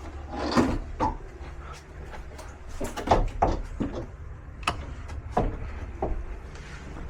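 A series of irregular knocks, clicks and clunks from metal parts of an air-conditioning unit's electrics being handled, as the disconnect switch is looked for and worked.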